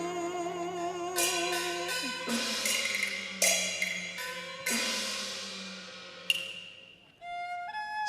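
Cantonese opera accompaniment between sung lines: a bowed string holds a wavering note, then metal percussion crashes ring out about a second apart, each fading away. Near the end a few rising notes lead back into the singing.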